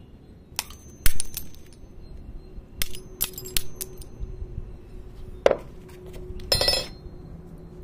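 The thin glass neck of a CRT picture tube being struck and chipped away from the electron gun inside: a series of sharp glass cracks and clinks, the loudest about a second in, a single ringing clink after about five seconds and a short rattle of breaking glass near the end.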